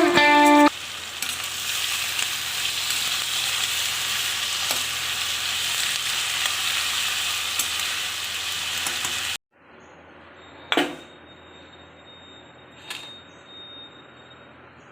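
Food sizzling in hot oil in a cooking pan, a steady hiss that stops abruptly about nine seconds in. A much quieter stretch follows with two sharp knocks, like a utensil against the pan.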